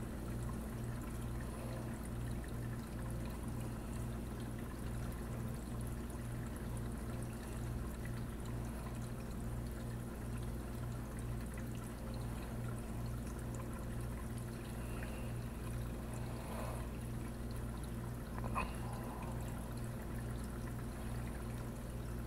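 Reef aquarium running: a steady hum from its pump with water flowing and trickling through the system, and one short faint tick about three-quarters of the way through.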